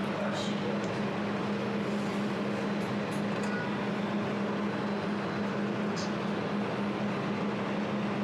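200-watt jewelry laser welding machine switched on and running: a steady hum with an even fan-like noise, with a faint tick about six seconds in.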